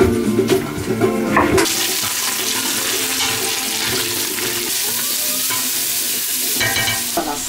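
Diced carrot and onion frying with a steady sizzle in a stainless steel pot while being stirred with a slotted spatula. For the first second and a half, guitar music with a few knife chops on a wooden board, then the sizzle cuts in suddenly.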